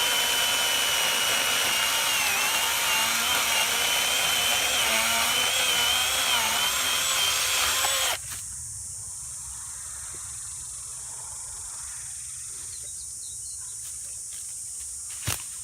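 Greenworks 40-volt battery chainsaw's electric motor running under load through cedar, its whine wavering in pitch, then cutting off suddenly about eight seconds in. After that, a steady insect drone and a single sharp click near the end.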